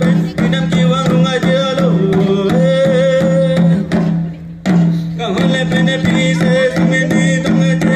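Karbi traditional dance music: a steady drum beat of about three strokes a second under a wavering melody and a held low drone. The music drops out briefly about four seconds in, then resumes.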